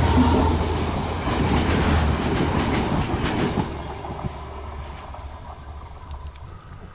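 Train passing close by, its wheels clattering over the rail joints, then fading away over the last few seconds.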